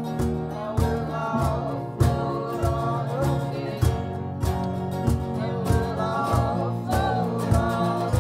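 A small live band playing a song: strummed acoustic guitar and a Nord Electro keyboard, with singing over a steady percussive beat.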